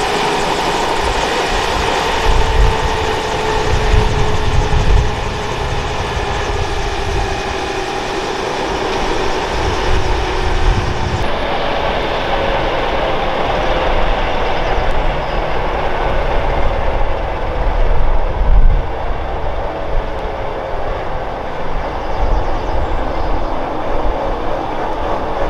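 Airbus H145 D3 helicopter winding down on the ground: the twin turbine whine falls slowly in pitch as the engines spool down and the five-blade main rotor turns over slower, with gusts of rotor wash rumbling on the microphone.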